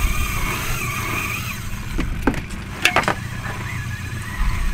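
Small fishing boat's motor running steadily with a low rumble. A wavering high tone sounds over it in the first second and a half, and a few sharp clicks come between two and three seconds in.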